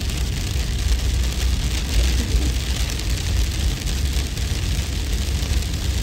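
Steady, dense hiss of pattering hail over a deep, constant rumble of wind.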